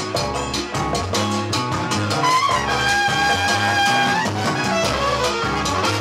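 A horn-led Latin soul band playing live: trumpets and saxophones over bass, drums and Latin percussion, with a steady beat. In the middle a horn holds one long high note that slides up into it.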